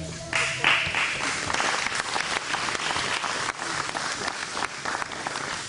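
A crowd applauding, the clapping starting about a third of a second in and thinning out near the end.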